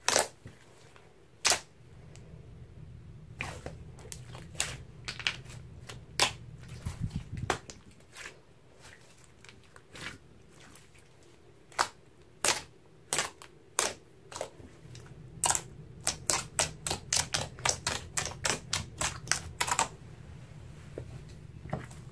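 Hands kneading, folding and poking a large batch of thick slime, giving sharp wet clicks and pops as trapped air bursts out. Near the end comes a fast run of pops, about three or four a second, as fingertips jab holes into it.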